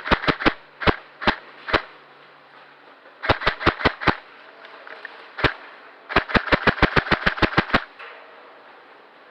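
Airsoft guns firing in bursts and single shots: a quick burst of four, three single shots, a burst of about six a few seconds in, one more single, then a longer burst of about fourteen shots at roughly eight a second.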